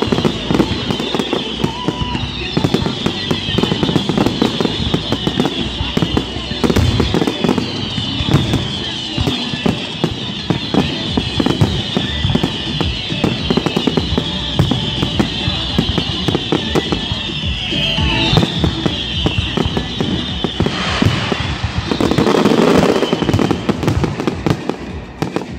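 Fireworks display: a continuous barrage of aerial shell bursts, rapid bangs and crackling packed closely together, with a denser, louder stretch near the end.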